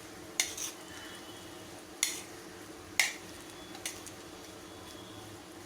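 A spoon stirring yogurt and fried onions in a bowl, knocking sharply against the bowl four times.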